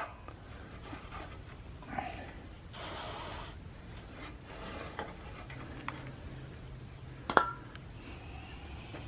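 A short hiss from an aerosol can of CRC electronic cleaner about three seconds in. Around it come rubbing and light clicks of parts being handled, with one sharp click near the end as the loudest sound.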